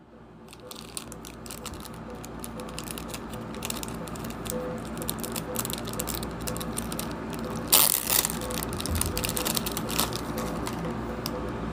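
Thin clear plastic packet crinkling and crackling in the hands as it is handled and opened, with a louder crackle about eight seconds in.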